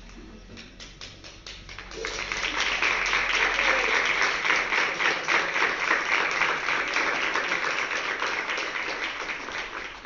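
Applause: scattered claps at first, swelling into full, steady clapping about two seconds in, then cutting off abruptly near the end.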